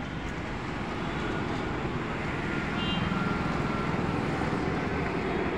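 Steady road traffic noise from passing cars, growing somewhat louder about halfway through as a vehicle comes closer.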